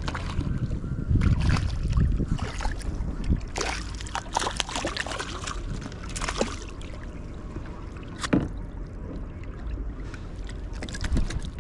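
Irregular water splashing, knocks and clicks at a kayak as a hooked trout is played and landed, over a low rumble of wind on the microphone.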